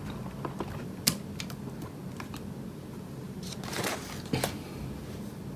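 Light plastic clicks and handling noise as the program card's lead is unplugged from the RC truck's ESC, with one sharper click about a second in and a brief rustle near the end.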